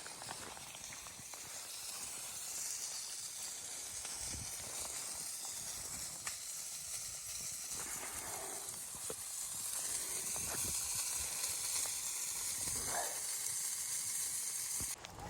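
A steady high-pitched hiss, with a few faint short pitched sounds around the middle and near the end.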